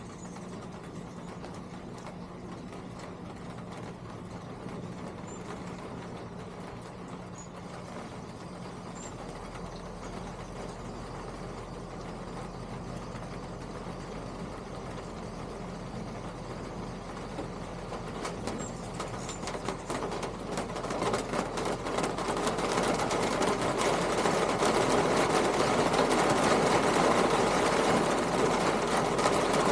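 A steady mechanical noise, like a motor or engine running, that grows much louder over the second half.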